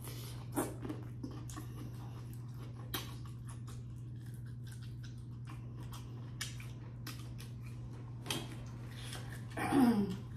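Close-miked eating of a seafood boil: scattered small wet clicks and crackles of chewing and handling food over a steady low hum. Near the end there is a short, louder voiced sound falling in pitch.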